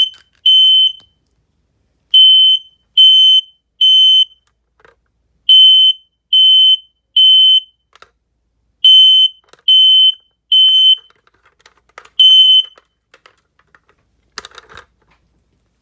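Kidde smoke alarm in full alarm after a canned-smoke test, sounding loud, high-pitched beeps in repeated sets of three, the temporal-three evacuation pattern. It cuts off after a single beep about twelve seconds in, and a brief clatter follows near the end.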